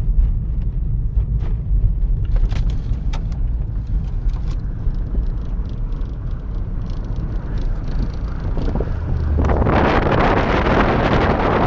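Low, steady rumble of a car driving, heard from inside the cabin. About three-quarters of the way in, a loud rush of wind noise suddenly comes in over the microphone and carries on.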